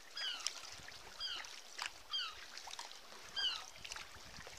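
Sea kayak paddle strokes, with water splashing and dripping off the blades. A short, high, falling call repeats about once a second, the call of a bird.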